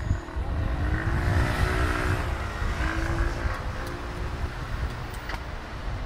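A car passing on the street, its engine and tyre noise swelling and then fading, over a steady low rumble.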